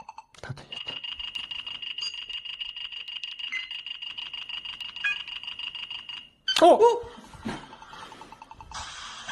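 Electronic sound effects from an instant-win number-matching game: a steady high beeping tone over fast, even ticking for about five seconds, then a brief, louder sliding sound about six and a half seconds in.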